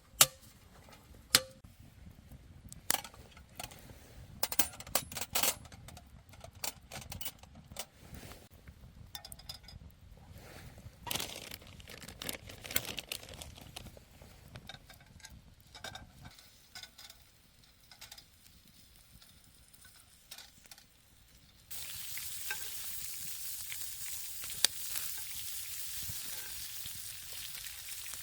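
Scattered clicks and knocks of cookware being handled, then about 22 seconds in a steady sizzle starts abruptly: food frying in a hot pan over a campfire.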